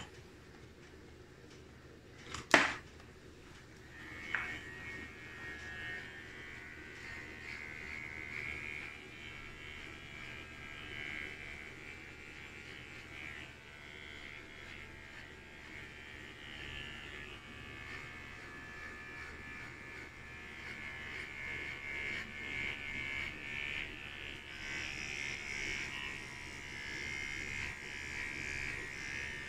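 Electric hair clippers buzzing steadily as they cut short hair at the nape of the neck, starting about four seconds in, the buzz wavering as the blade meets the hair. A single sharp knock just before they start is the loudest sound.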